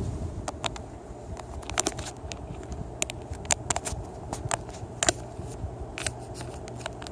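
Ceiling fan motor running with a steady low hum. Irregular sharp clicks and crackles are scattered over it.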